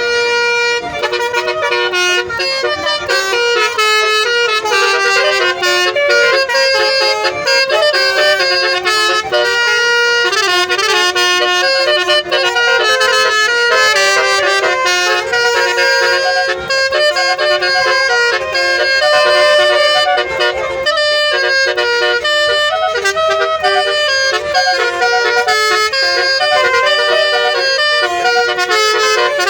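Basuri telolet multi-trumpet air horn playing a continuous melody of quickly changing notes.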